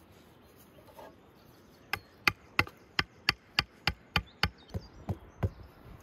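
A blade chopping on wood: about a dozen sharp strikes, roughly three a second, starting about two seconds in.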